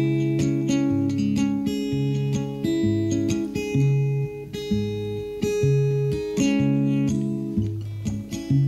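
Steel-string acoustic guitar played solo, an instrumental introduction of picked bass notes and chords that change about once a second.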